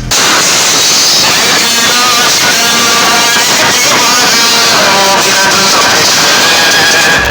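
Loud, distorted sound played through a large sound system: wavering high-pitched tones over a dense noise, with no bass beat.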